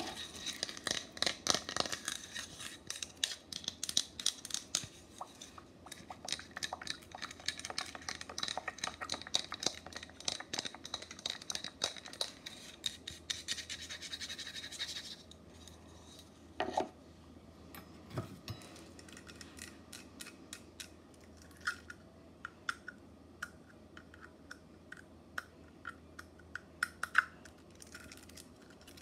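Long fingernails scratching and tapping rapidly on hand-held objects right at the microphone for about fifteen seconds, then sparse single taps with a couple of duller knocks.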